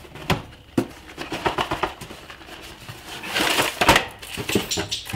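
Cardboard box being handled and its lid opened: a run of light knocks and taps, then a short burst of rustling and scraping about three seconds in, followed by a few more taps.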